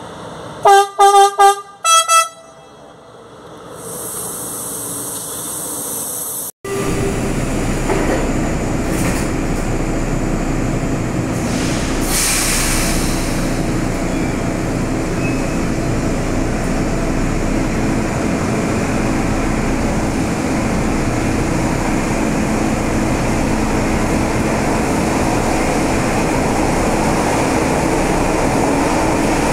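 A train horn sounds several short blasts. Then comes the steady running noise of an Alstom/Mafersa Frota E metro train heard from inside the car: an even rumble with a low hum.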